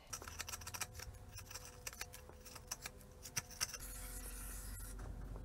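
Hand tools working on a motorcycle engine: a run of small metal clicks and scrapes, then a short hiss about four seconds in.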